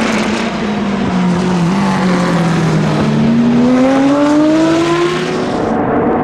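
Porsche 917's air-cooled flat-12 racing engine at speed on track. Its note falls for the first two seconds or so, then climbs steadily as the car accelerates.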